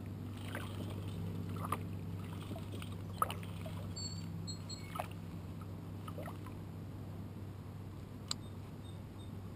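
Baitcasting fishing reel being cranked to retrieve a lure: a low steady whir, part of which stops about seven seconds in. A few light clicks and knocks of gear on the kayak are scattered through it.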